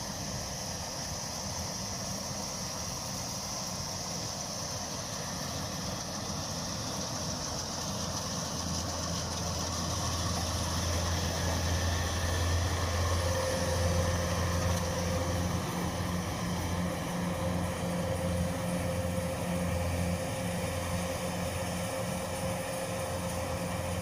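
Kubota DC105X combine harvester's diesel engine running steadily and smoothly. It grows somewhat louder toward the middle, and a steady higher whine joins about halfway through.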